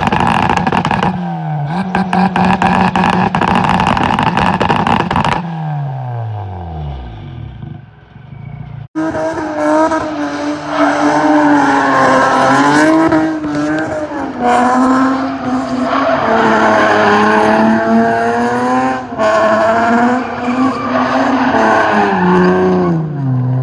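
Turbocharged Honda Civic four-cylinder held at one rpm on a two-step limiter, crackling and popping, then the revs fall away. After a sudden cut, the engine is run hard at high revs, its pitch wavering up and down.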